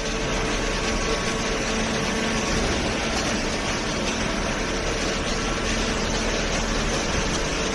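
Hydraulic carton baler's power unit, an electric motor driving the hydraulic pump, running with a steady hum.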